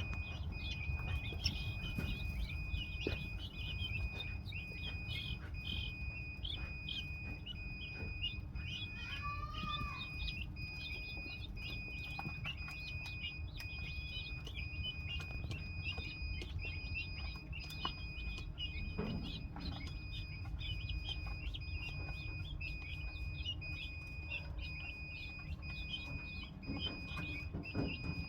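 Guinea fowl calling: a dense, continuous run of short, rapid chirping calls, with one longer call about nine seconds in. A steady high tone and a low rumble run underneath.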